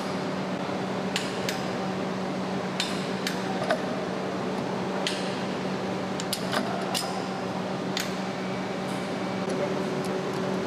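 Hand tools and metal parts clinking and tapping now and then over a steady machine hum.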